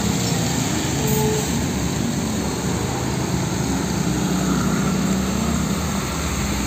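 Road traffic sound: a heavy tanker truck and motorbikes driving on a wet road, giving a steady engine and road noise.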